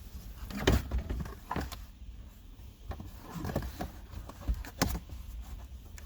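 A few separate metallic clicks and knocks, about four, from a wrench working a fastener and handling interior trim parts.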